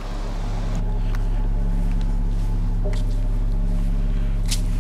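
Low, steady engine-like hum that sets in at the start, builds over about a second and then holds, with a few faint clicks over it.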